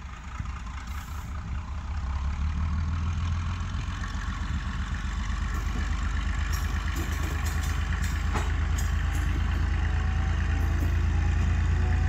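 GE 50-ton diesel switcher's engines running as it pulls slowly along the yard track, growing steadily louder as it comes closer. There is one sharp knock about eight seconds in.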